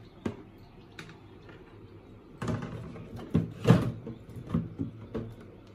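Plastic egg incubator lid being shut and handled: a click just after the start, then a run of hard plastic knocks and clatters starting about two seconds in.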